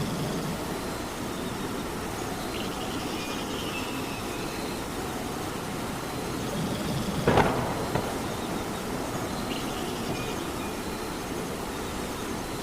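Steady rain. About seven seconds in comes a single sharp, loud knock.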